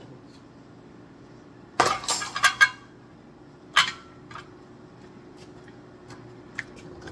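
Thrown objects striking the blades of a spinning ceiling fan: a quick cluster of clattering, clinking hits about two seconds in, then a single sharp hit a couple of seconds later and a few small ticks, over a faint steady hum.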